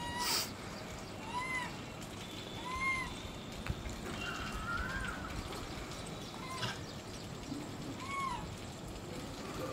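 Infant rhesus macaque calling: about five short, high calls, each rising then falling in pitch, spaced a second or two apart, with one longer wavering call near the middle.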